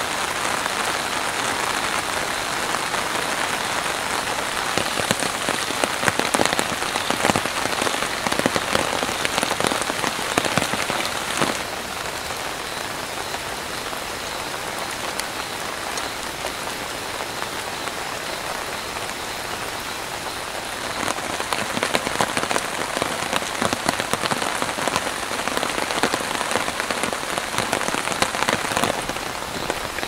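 Heavy rain falling on a nylon tarp shelter: a dense steady hiss of drops with fine, close drop hits. It eases a little in the middle stretch and grows heavier again about two-thirds of the way through.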